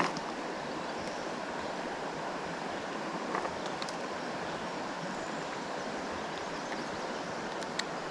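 Steady rushing of a trout stream's flowing water, with a faint click or two about three and a half seconds in and near the end.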